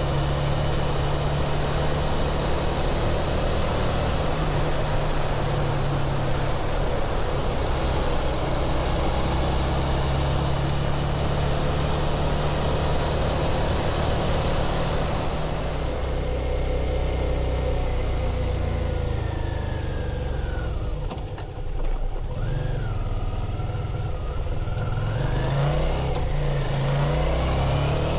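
2017 Suzuki V-Strom DL650's V-twin engine through its stock muffler, running at a steady cruise with wind and road rush. About two-thirds of the way through it eases off and the engine note falls, then it revs up again as the bike accelerates near the end.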